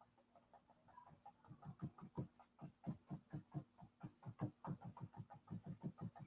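Paintbrush being dabbed repeatedly against a canvas to lay down dots of paint: a string of faint, soft taps, about three or four a second, beginning about a second and a half in.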